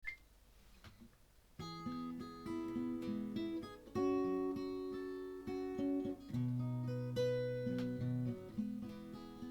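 Solo acoustic guitar playing a folk song's instrumental introduction, picked and strummed chords. It starts about a second and a half in, after a quiet lead-in.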